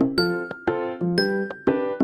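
Background music: a light tune of struck pitched notes, about two a second, each fading before the next.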